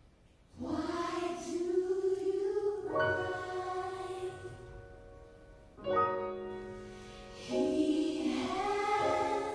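A choir singing a slow gospel song in long held chords, starting about half a second in; the chord changes every two to three seconds.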